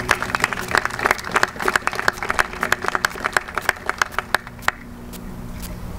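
Audience applauding with many hands clapping, dying down after about four and a half seconds to a few scattered claps.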